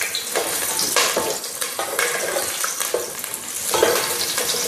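Whole spices and green chillies sizzling in hot oil in an aluminium pot. A wooden spatula scrapes around the pot about once a second as they are sautéed.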